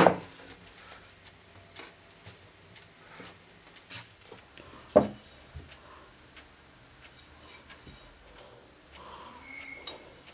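Handling noises from a rusty steel meat cleaver blade being set down and moved about on a cloth-covered wooden bench: a loud knock at the start and another about five seconds in, with small scattered taps and clinks between.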